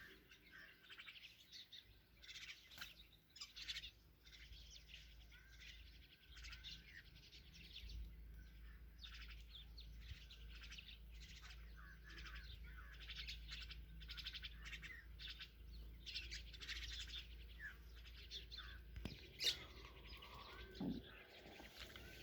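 Mynas chirping at the nest, faint: many short, high chirps in quick runs, with a slightly louder call near the end.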